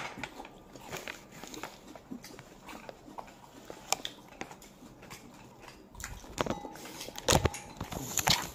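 Chewing and scattered light clicks of tableware at a dinner table, with a louder clatter about seven seconds in.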